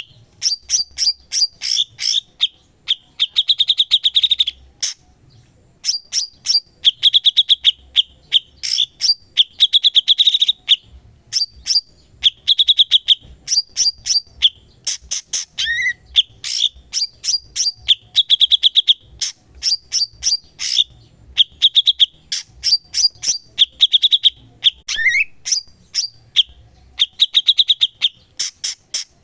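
Cucak cungkok songbird singing continuously in fast, high chattering trills, phrase after phrase with short pauses between, mixed with sharp clicking notes and two brief rising notes, about midway and near the end.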